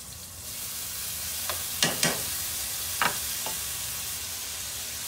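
Mushrooms frying and sizzling in a skillet, the sizzle growing louder about half a second in. They are stirred with a utensil that clacks against the pan several times, loudest around two and three seconds in.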